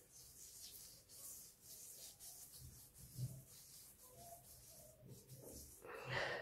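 Fingertips rubbing a grainy facial scrub over the skin of the face, a faint, scratchy rubbing in short strokes, with a brief louder noise near the end.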